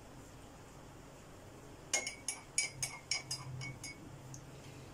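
A spoon clinking against the inside of a ceramic mug while stirring honey into kahwa: a quick run of about ten light clinks, starting about two seconds in and lasting about two seconds.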